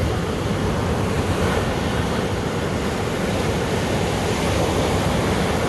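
Sea surf washing onto a beach in a steady rush, with wind buffeting the microphone in low rumbles.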